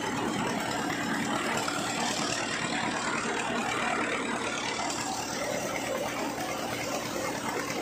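A tractor engine running steadily, driving a thresher while crop is fed through it.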